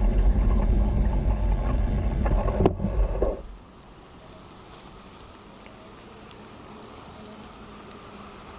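Low rumbling wind and riding noise on a bicycle-mounted action camera, with a sharp click a little before three seconds in; at about three and a half seconds it cuts off suddenly, leaving a faint steady hiss.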